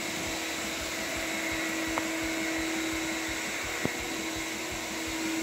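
Canister shop vacuum running steadily with an even whooshing hum as the sanded hardwood floor is vacuumed clean before the sealer coat. Two faint clicks come about two and four seconds in.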